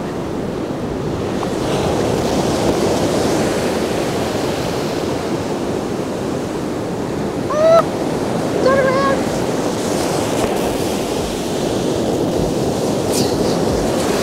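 Ocean surf breaking and washing up a steep sand beach, a steady rushing wash with some wind on the microphone. A little past halfway there are two brief pitched calls: a short upward-gliding cry, then a quick run of three short notes.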